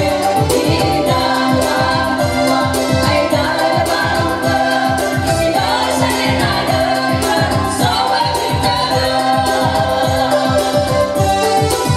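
Four women singing together into microphones, amplified through a loudspeaker, over a Technics electronic keyboard backing with a steady beat.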